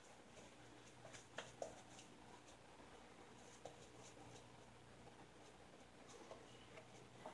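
Merkur 34C double-edge safety razor scraping through lather and stubble in faint, short scratchy strokes, with a few sharper scrapes about a second and a half in.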